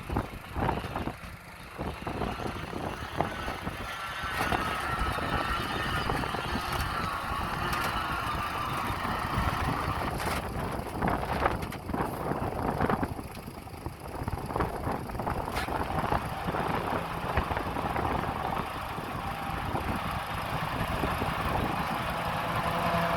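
Diesel engine of heavy earthmoving machinery running under load, with a wavering whine and a few sharp metallic clanks.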